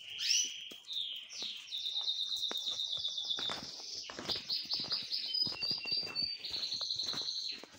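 Domestic canary singing a long song of fast repeated notes and rolling trills, with short clicks scattered through it.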